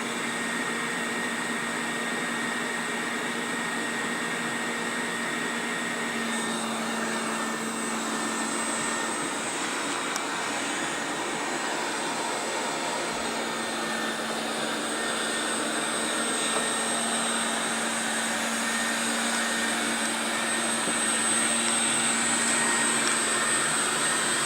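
Wolkinz COSMO robot vacuum cleaning: its inverter suction motor runs steadily with a high whine over a constant hiss, getting a little louder near the end.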